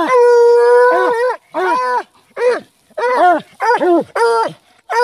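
Hound baying at a fox hole: one long, held bawl of a little over a second, then a string of short barks that rise and fall in pitch.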